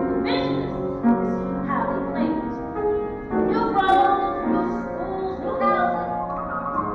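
A woman singing a show tune in held, sustained phrases, with piano accompaniment.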